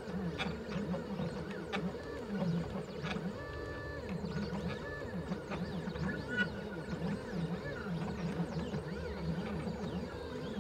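Stepper motors of a CNC 3018 driving a drag knife across sticker vinyl: a whine whose pitch keeps sliding up and down as the axes speed up, slow and change direction, over a steady hum, with scattered ticks.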